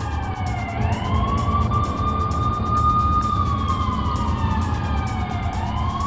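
Police car siren in a slow wail. The pitch slides down over a couple of seconds, sweeps quickly back up, and holds high before falling again, once about a second in and again near the end, over a steady low rumble.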